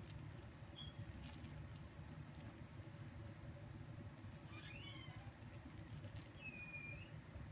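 Faint rustling and scuffling of cats pouncing on and batting a fluffy wand-toy lure on a bed. A few short, high squeaks come in the second half, the longest near the end.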